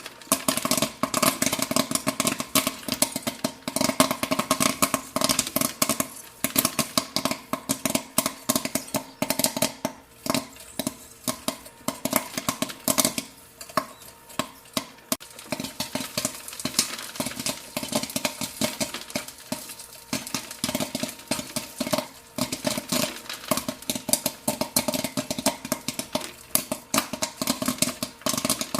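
Popcorn popping: a dense, irregular crackle of many kernels bursting several times a second, thinning briefly about halfway through, over a steady hum.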